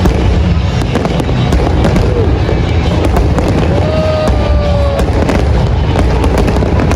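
Dense crackling and popping over a steady low rumble, with background music.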